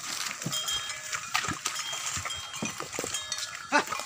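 Ox-drawn wooden cart on the move: irregular hollow knocks and clanks from the bell hanging at the ox's neck and the cart's wooden frame, with one louder knock near the end.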